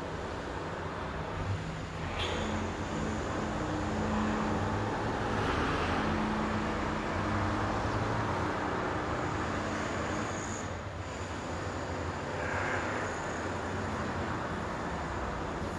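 Road traffic: a steady wash of passing vehicles with a low engine hum, swelling twice, about a third of the way in and again late on.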